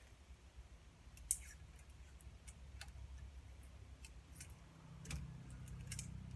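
A few short sharp clicks and snips from scissors and a roll of heat tape being handled and cut, the loudest about a second in. A low hum comes in about five seconds in.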